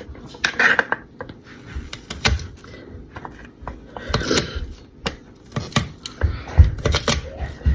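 Garlic cloves being pressed and cut with a knife on a cutting board: scattered sharp clicks and knocks, then a run of quick low thumps near the end.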